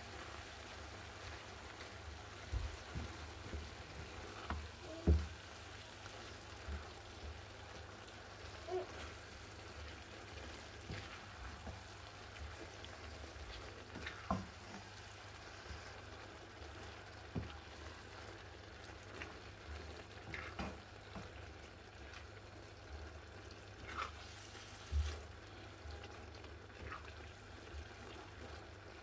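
Minced meat and tomato sauce sizzling faintly in a frying pan as a spatula stirs it, with scattered scrapes and knocks of the spatula against the pan.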